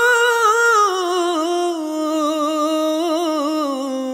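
A solo singing voice holds a long wordless note in a Hindi film-style romantic song, winding with small ornaments and stepping slowly down in pitch.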